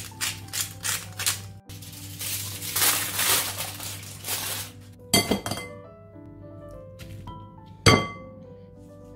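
Clinks and taps of glass and metal kitchenware over soft piano music: a quick run of light taps in the first second or so, a noisy rustle, then a few sharp clinks, the loudest near the end as a potato masher strikes a glass mixing bowl.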